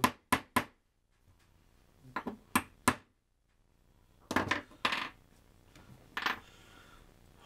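Hammer tapping a new bushing into the metal shaft housing of a bread maker bucket: sharp metallic taps in small groups of two or three, with a tighter cluster about four seconds in and a last tap near the end.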